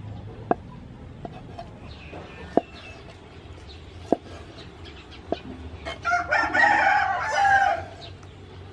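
A knife knocking sharply on a wooden chopping board every second or two as squid is sliced into rings. About six seconds in, a rooster crows once, loudly, for nearly two seconds.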